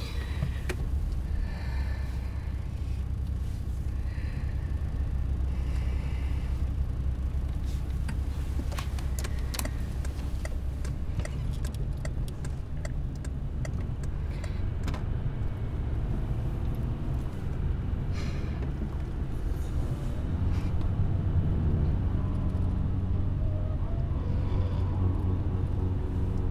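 Steady low rumble of a car driving, heard from inside the cabin, with a few light clicks in the middle.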